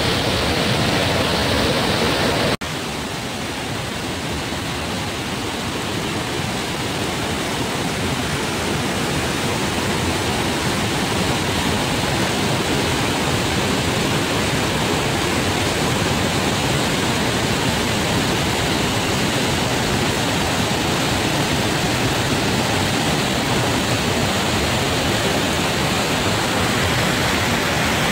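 Waterfall: a steady, loud rush of falling water. It drops out very briefly about two and a half seconds in, then comes back a little quieter.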